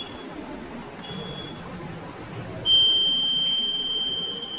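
Electronic warning buzzer of a railway signalling interlocking console: one short high beep about a second in, then a long, loud, steady high-pitched beep starting near the end.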